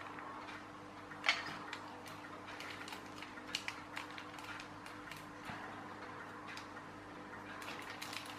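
Faint, irregular clicks and taps of small plastic parts as a clockwork toy tractor's wheel and clear plastic gearbox are handled and twisted, with one sharper click about a second in.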